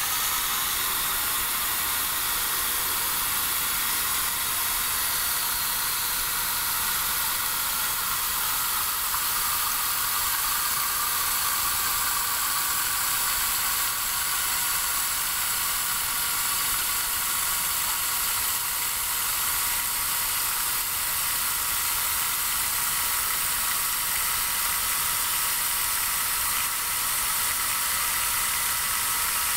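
Magic Chef 20-pound washer filling with water for the wash: a steady hiss of water spraying into the tub through the fill valve.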